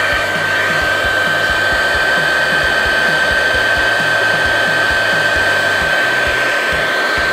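Okura hot-air plastic welding gun blowing steadily, a rush of air with a steady high whine, as it heats and melts a PVC welding rod onto PVC pipe.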